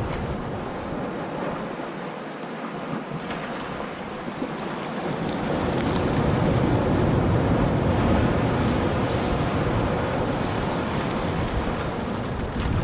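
Sea waves washing up over wet sand and around rocks. The wash swells louder about halfway through as a wave runs in, then eases as the water drains back.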